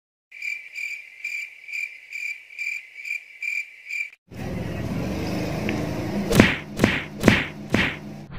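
Cricket-chirp sound effect: an even high chirp about two and a half times a second for some four seconds, cut off abruptly. A steady hiss follows, with four quick whooshes near the end.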